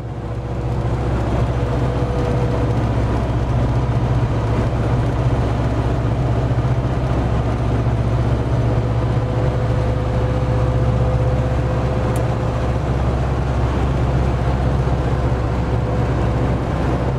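Steady road noise inside a UAZ Patriot's cabin at highway speed: a low rumble of engine and tyres, with a faint steady tone above it. It fades in over the first second.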